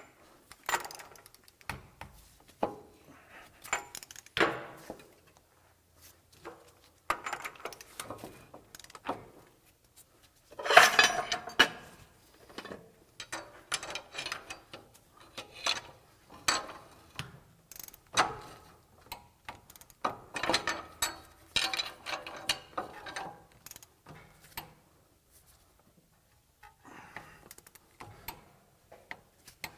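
Ratchet wrench clicking in repeated short strokes with some metal tool clatter, as the axle nut on a front wheel hub is run down and torqued, with a lull near the end.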